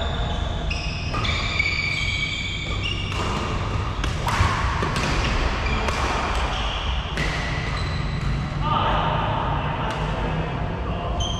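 Badminton rally: rackets strike the shuttlecock sharply several times, about a second or two apart, and sneakers give short high squeaks on the wooden court floor. A steady low hum of the sports hall runs underneath.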